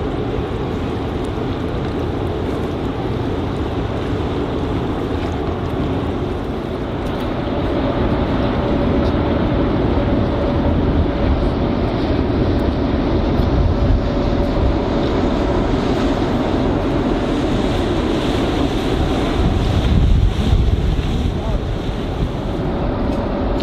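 Harbour ambience on the water: wind buffeting the microphone over a steady low rumble of boat engines and moving water, growing a little louder about a third of the way in.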